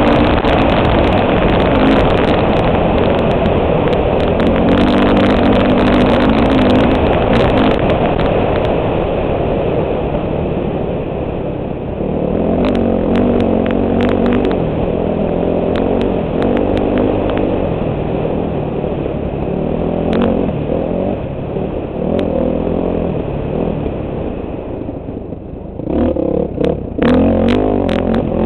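Four-stroke dirt bike engine running hard at speed, its note rising and falling with throttle and gear changes. It eases off briefly near the end, then pulls hard again.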